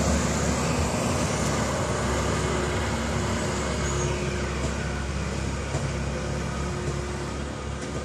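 Bus's diesel engine running steadily as the bus pulls away round a bend, its sound slowly fading.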